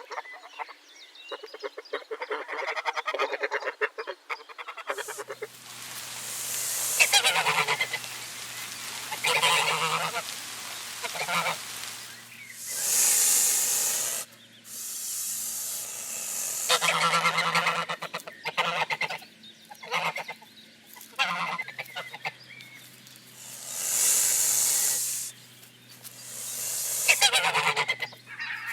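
Geese honking over and over in a series of calls, with a steady low hum underneath from about five seconds in. Twice, a loud rushing hiss rises above the calls for a second or two.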